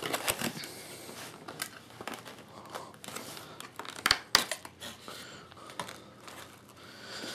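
Clear plastic packaging crinkling and rustling as a model locomotive is slid out of its plastic sleeve, with a few sharp plastic clicks and taps, the loudest about four seconds in.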